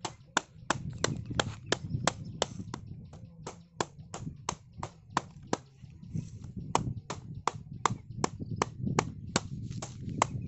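A wooden stick hammering down on the tops of a woven bamboo tree guard's stakes, driving it into the ground: sharp knocks, about three a second.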